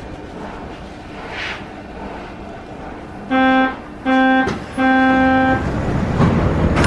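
Door-closing warning signal of a Soviet-built 81-717 series metro train: three beeps on one pitch, two short and a longer third, over the low hum of the standing train, with the doors starting to slide shut near the end.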